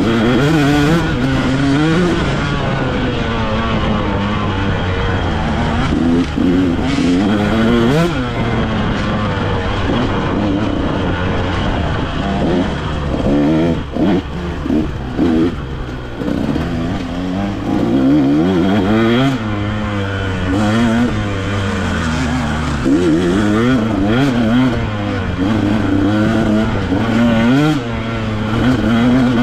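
Dirt bike engine under way on a rough trail, its pitch rising and falling again and again as the throttle is opened and closed, with a few sharp knocks from bumps.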